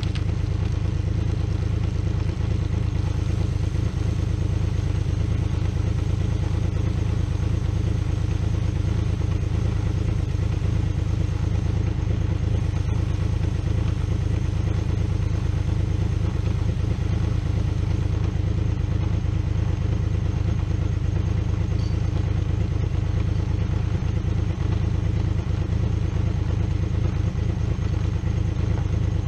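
2003 Honda VFR's V4 engine running steadily in gear on the center stand, spinning the raised rear wheel and drive chain, with a light chain clatter.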